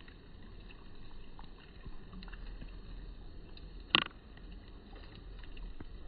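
Steady low outdoor rumble with faint scattered ticks, and one sharp click about four seconds in.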